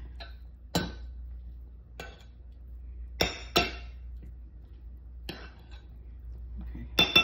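A metal fork clinking against a glass casserole bowl while mixing a chicken salad: about six short, sharp clinks with a brief ring, two close together a little after three seconds in and the loudest pair near the end.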